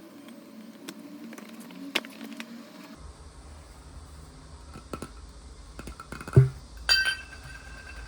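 Small clicks and taps of objects being handled, a loud knock about six seconds in, then a clink that rings on as a steady, bell-like tone.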